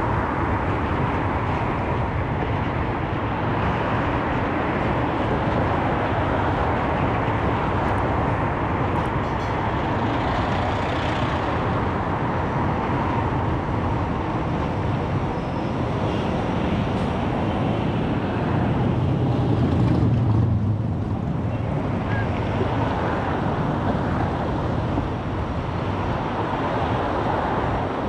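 Steady city road traffic heard from a moving car: an even rumble of engines and tyres, with a louder, deeper swell about two-thirds of the way through.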